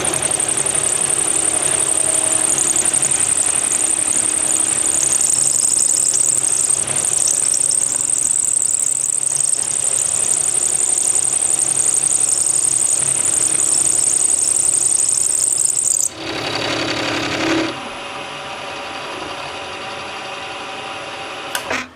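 Small milling machine cutting a slot in metal with a half-inch end mill, a steady high-pitched whine over the cutting noise. About sixteen seconds in the sound drops abruptly to a quieter, lower running.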